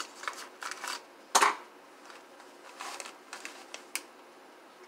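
Scissors cutting open a plastic bag, with short crinkles and snips of the plastic and one louder rustle about a second and a half in.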